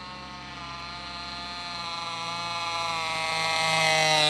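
Two-stroke MVVS model engine of a radio-controlled Messerschmitt Bf 109 running, rising slowly in pitch and growing louder as the model comes in to land close by.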